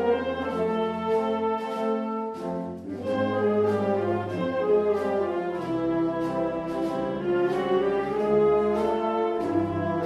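A Spanish Holy Week processional march (marcha procesional) played by a wind band: brass carrying the melody over sustained harmony, with percussion strokes keeping a steady beat.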